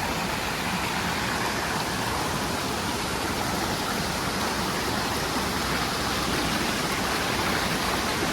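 Steady rush of water from a waterfall, an even hiss with no breaks.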